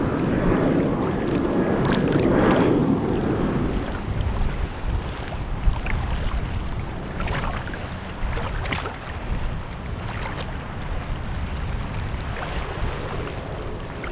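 Seawater sloshing and splashing around a person wading, with wind on the microphone. It is louder and denser for the first few seconds, then settles into lighter lapping with scattered small splashes.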